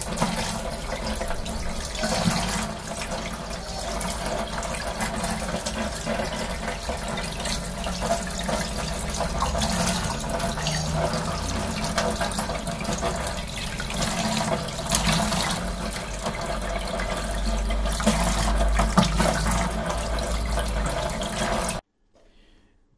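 Tap water running into a sink with irregular splashing as cut parrot fish pieces are washed; it cuts off abruptly shortly before the end.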